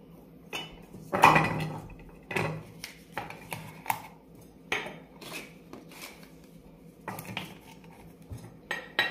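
Small metal tin and its lid clinking and knocking on a wooden table as paper packets are packed into it: a string of separate sharp taps, the loudest about a second in.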